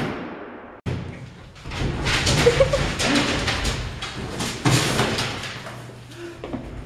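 A heavy door bang ringing out in a hard, echoing space. Then, a couple of seconds in, a quick run of footsteps and thumps with a few short squeaks, echoing in a concrete stairwell and fading near the end.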